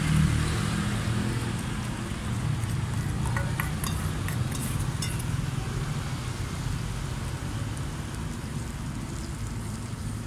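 Steady low rumble of street traffic, with a few light metallic clinks about three to five seconds in as the banana-and-egg filling is scraped from a steel bowl onto the roti griddle.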